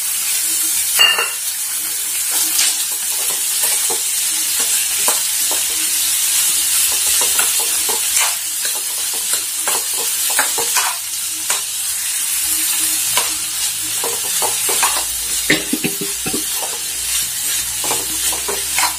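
Chopped, freshly washed green beans sizzling in hot oil in a kadai, with a metal spoon scraping and clicking against the pan as they are stirred.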